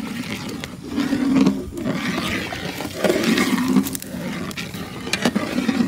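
A large pot of orange juice thickening with roasted semolina, boiling hard: low, throaty bubbling blurps come about once a second. A few sharp knocks come in the second half.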